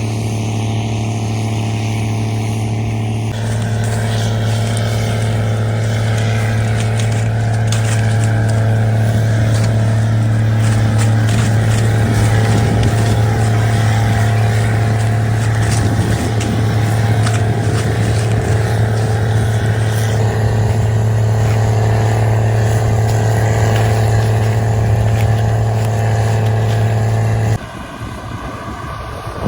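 Combine harvester running steadily while picking corn: a constant, loud engine drone with a strong low hum. Near the end it gives way abruptly to quieter, noisier sound.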